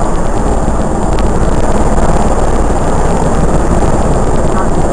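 Helicopter flying low past, its rotor and turbine noise loud and steady, with a fast, even rotor chop.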